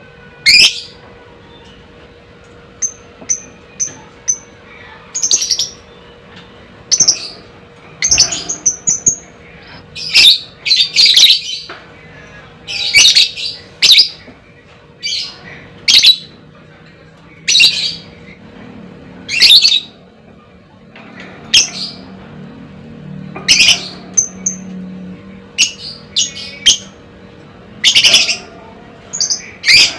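Lovebird calling: a string of short, shrill, loud squawks about once a second, broken by a few quick chattering runs.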